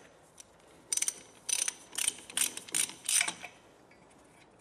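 Ratchet wrench with a hex socket clicking back and forth in about seven short strokes, undoing a bolt. The clicks start about a second in and stop about a second before the end.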